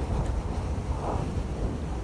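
Wind buffeting the microphone: a steady low rumble, with a soft whoosh about a second in.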